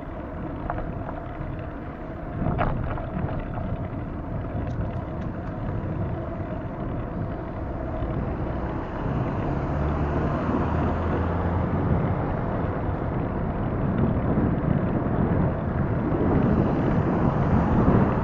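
Wind rushing over the microphone of a camera on a moving bicycle, over a steady low rumble of road noise, growing louder toward the end. A few short clicks come in the first few seconds.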